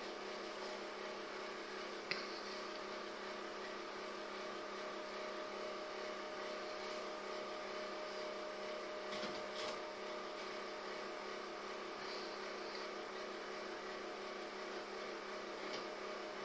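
Steady background hum with a constant tone running through it, broken by a couple of faint clicks.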